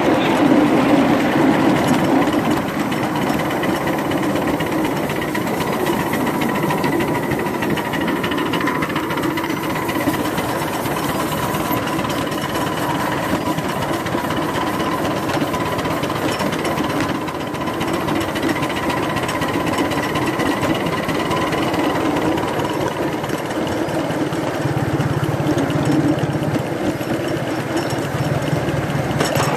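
Ride-on miniature garden railway locomotive running steadily along the track, heard from on board: a fast, even, engine-like chugging with a faint steady whine.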